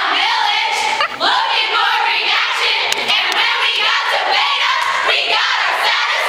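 A large group of women singing together loudly, mixed with crowd noise from the audience.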